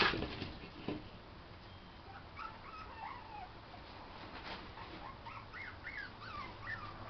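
A sharp knock right at the start and a smaller one about a second in, then five-week-old Miniature Pinscher puppies whimpering: a run of short, high, squeaky whines that rise and fall in pitch.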